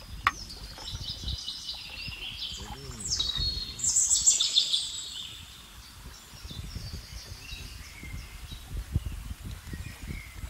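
Several birds chirping and whistling, busiest about four seconds in, over a low rumble.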